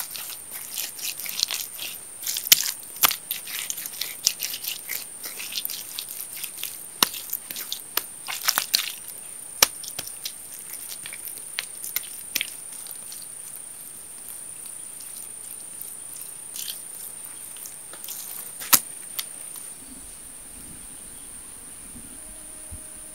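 Hands patting and smoothing wet clay over a clay-and-stone stove, making irregular short wet slaps and squelches, dense in the first half and sparse later. Behind them is a steady high-pitched insect drone.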